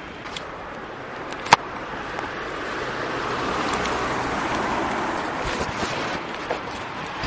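Street noise of a passing car, swelling and fading, with a single sharp click about one and a half seconds in.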